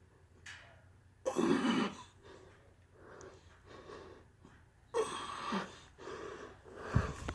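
A man breathing hard from exercise exertion, with heavy, forceful exhales, the loudest about a second in and another about five seconds in.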